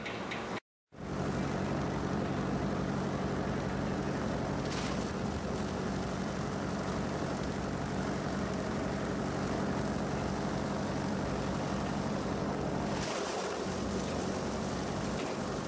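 Plastic-film agglomerator running, its rotor blades churning shredded carry-bag film in the drum over a steady motor hum. The sound cuts out briefly just under a second in, then runs on steadily.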